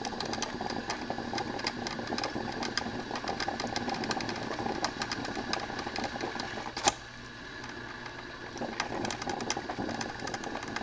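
Black & Decker thermal carafe drip coffee maker brewing: the water heater sputters and crackles with many irregular ticks, and a sharp click about seven seconds in is followed by a softer stretch.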